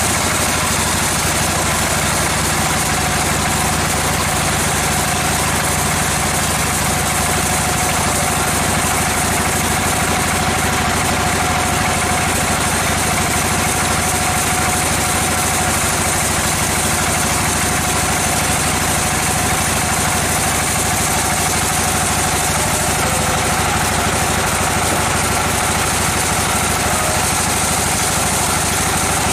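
Sawmill machinery running steadily: an engine-like drone with a faint steady whine, unchanging throughout.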